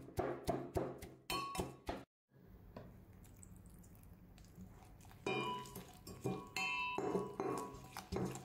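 Brass pestle pounding garlic, chilies and tomato in a brass mortar, two to three strikes a second, each clank ringing like a bell. The pounding stops for about three seconds in the middle, then starts again.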